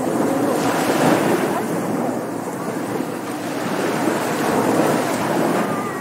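Ocean surf on a beach: waves breaking and washing up the shore as a continuous rush that swells and eases every few seconds.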